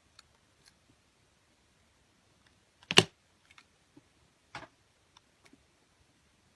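Scattered faint clicks and taps, with one sharp, loud click about three seconds in and a softer knock about a second and a half later.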